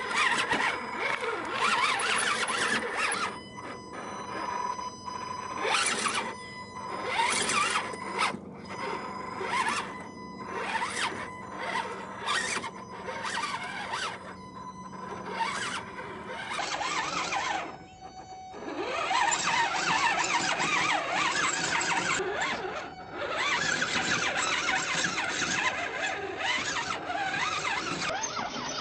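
Radio-controlled rock crawler (ECX Barrage chassis) driving over rounded river rocks: its electric motor and gears whine while the tires scrape and grind on the stones in irregular surges, with a brief lull a little past the middle.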